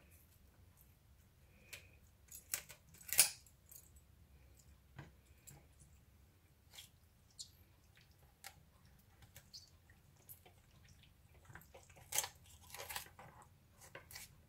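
Kitchen shears snipping through a raw chicken: scattered short snips and clicks of the blades, with a louder snip about three seconds in and a run of snips near the end.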